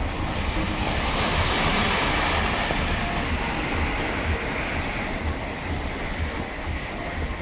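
Steady hiss of rain with wind buffeting the microphone in low rumbling gusts. The hiss swells about a second in and eases after about three seconds.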